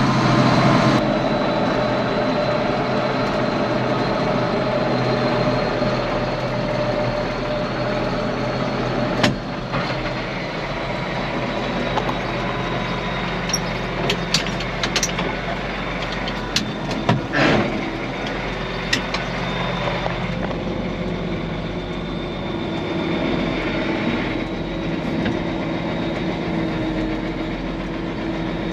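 Case 4690 four-wheel-drive tractor's diesel engine running steadily while driving, with a sharp knock about nine seconds in and a cluster of clunks and rattles a few seconds later.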